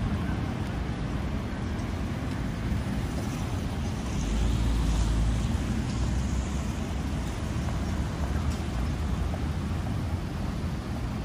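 City street traffic noise: steady rumble of passing cars, with a louder low rumble for about two seconds near the middle.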